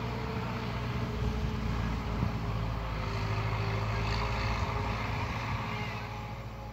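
Zetor 7745 tractor's four-cylinder diesel engine running as it drives past pulling a loaded trailer, getting louder as it approaches and fading as it moves away near the end.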